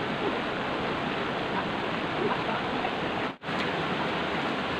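Steady rush of a small river waterfall and rapids, cutting out for a moment about three and a half seconds in.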